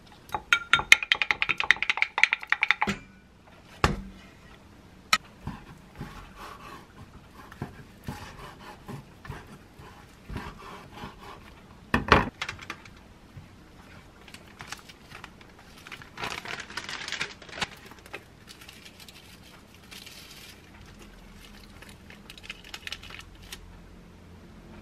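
Kitchen prep sounds: a wooden spoon stirring sauce in a small glass jar, a rapid run of clinks for the first few seconds. Then a knock, a knife cutting rolled egg omelette on a wooden cutting board with a loud knock about twelve seconds in, and a rustle of plastic wrapping later on.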